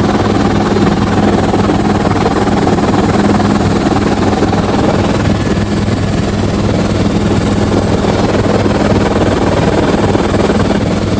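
Helicopter running steadily in flight, heard from inside the cabin: a loud, even rotor and engine drone with a low, constant hum.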